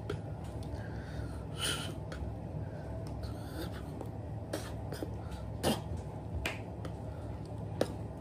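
Steady low room hum with scattered soft clicks, hand brushes and a breathy puff from a person signing with hands and mouth; the sharpest click comes a little past the middle.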